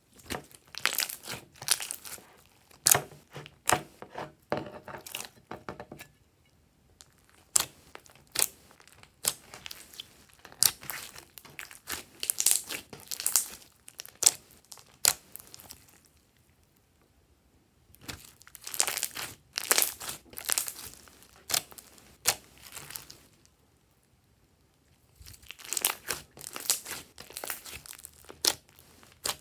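Glossy slime being squished and stretched by hand, making many sharp clicks and pops of trapped air. It comes in four bouts with short pauses between.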